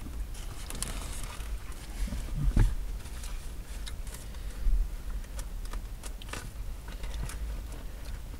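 Eating and food-handling noises in a car: scattered rustles and clicks of a take-out food box and utensils, with chewing, over a steady low hum. Two louder knocks come about two and a half and four and a half seconds in.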